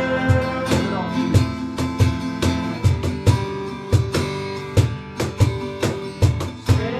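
Live worship band playing an instrumental passage between sung lines: strummed acoustic guitar over sustained chords, with a steady drum beat of about two hits a second.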